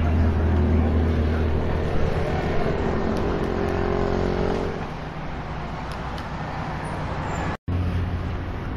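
Street traffic sound: a motor vehicle's engine running with a low steady hum over general street noise, the engine easing off about five seconds in. All sound cuts out for a split second near the end.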